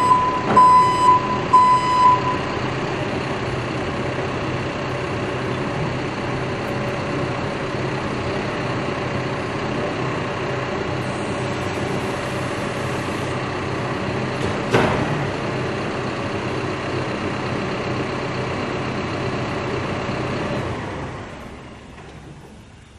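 Cat backhoe loader's diesel engine running steadily, with its backup alarm beeping a few times in the first two seconds. There is a single knock about fifteen seconds in, and the sound fades away near the end.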